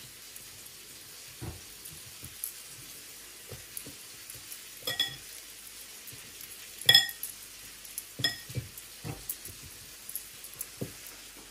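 Soft handling noises of asparagus and broccoli spears being laid out on paper towel, with three short ringing clinks, the loudest about seven seconds in. Under it runs a steady faint sizzle of steak frying in a pan.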